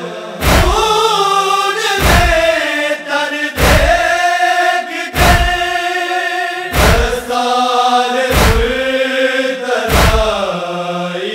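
Male group chanting a noha lament in unison, in long held lines that glide in pitch. A heavy thump of matam chest-beating falls about every second and a half and keeps the beat.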